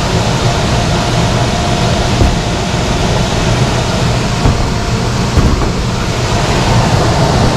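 Heat pump air handler's blower running steadily, a loud rushing of air over a low hum, with a few short knocks of handling on the unit about two, four and a half and five and a half seconds in.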